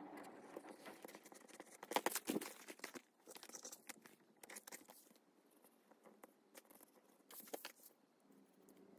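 Quiet crafting sounds: leather rustling and sliding on a cutting mat, with scattered sharp clicks and crunches from a small blade cutting leather and paper, loudest about two seconds in.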